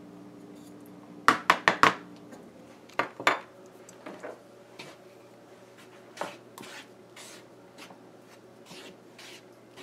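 Utensils knocking against a large basin: four sharp, quick clicks about a second in and two more a second or so later. Then softer scraping and tapping as a spatula stirs dry flour in the basin.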